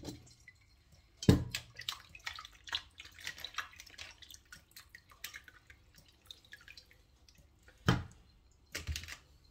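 Meat bones being rinsed and handled in a kitchen sink: water dripping and splashing with light clicks, and two heavier knocks, about a second in and near the end.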